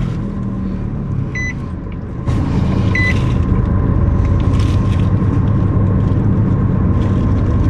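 Car cabin with the engine running low and steady while a dashboard warning chime beeps twice, about a second and a half apart. A little over two seconds in, the cabin noise steps up and stays louder.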